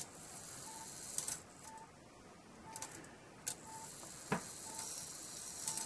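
Brass 30-day clock movement being handled: a few sharp metallic clicks with light jingling, and a faint short ping repeating about once a second.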